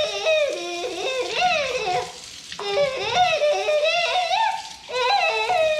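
Music: a melody of notes that slide up and down, playing steadily with a short dip about two and a half seconds in.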